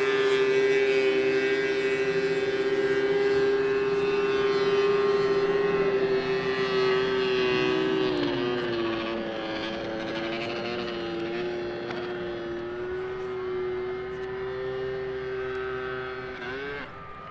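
Snowmobile engine running at high, steady revs. The pitch dips slightly about halfway through and the sound slowly fades, then the revs drop sharply near the end.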